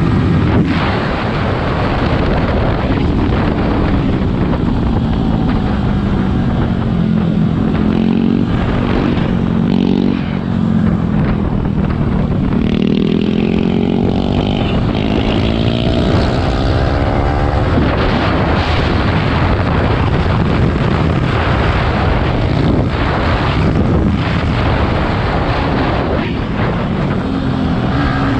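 Yamaha R15 V3's 155 cc single-cylinder engine heard from the rider's seat under heavy wind rush. The engine note falls as the bike slows from high speed and changes down, then climbs again in rising sweeps about halfway through as it accelerates out of a corner.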